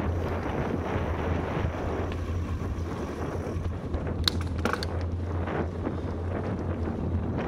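Wind buffeting the microphone of a camera riding on a moving bicycle: a steady rushing rumble. Two short sharp clicks come about four seconds in.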